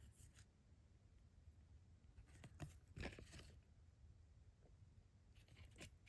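Near silence, with a few faint scuffs and clicks of trading cards being handled and slid past one another.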